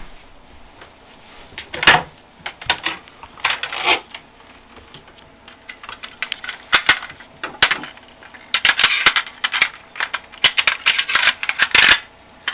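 Hands handling small hard objects: irregular sharp clicks and short crinkly rustles, coming thick and fast in the last few seconds.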